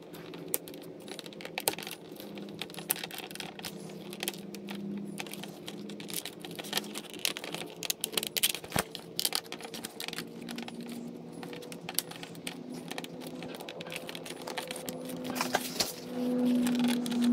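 Irregular plastic clicks and rattles as the shift boot's trim plate in a 2010–2014 Ford Mustang console is pried and unsnapped from its retaining clips, over a faint low hum.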